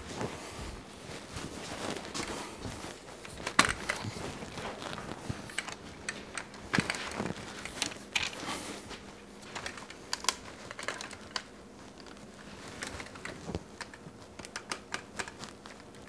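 Handling noise from a camera being picked up and carried: irregular clicks, taps and rubbing against the microphone.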